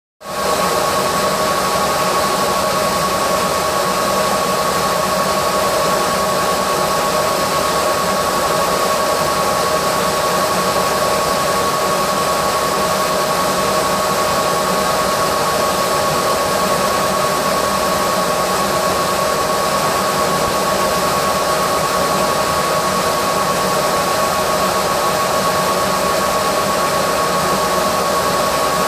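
Laser engraving machine running while it engraves a wooden box lid: a steady rushing noise with a steady high whine through it, unbroken and even in level.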